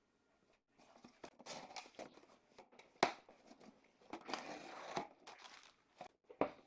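Faint irregular rustling and crinkling handling noises, with a sharp click about three seconds in.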